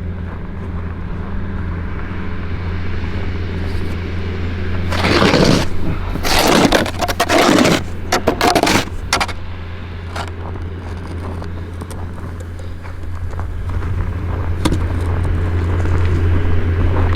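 A vehicle engine running steadily, with several loud scraping noises from about five to nine seconds in.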